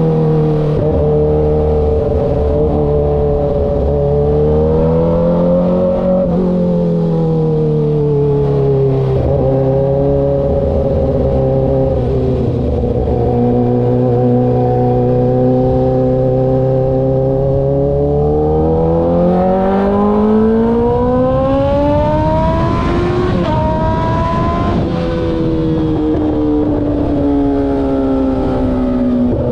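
2013 Kawasaki ZX-6R's 636 cc inline-four engine under way. It holds fairly steady revs with small rises and falls, then revs climb steadily for several seconds about two-thirds of the way through, with wind noise building. After a break at a gear change it carries on at lower revs, easing down.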